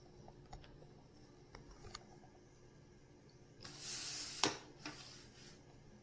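Quiet handling sounds: a few light clicks, then about a second of rustling that ends in a sharp click.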